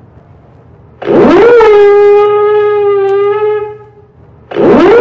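Ship's alarm siren sounding long blasts: each rises quickly to a steady, harmonic-rich tone, holds for about three seconds, then dies away, with the next blast starting near the end.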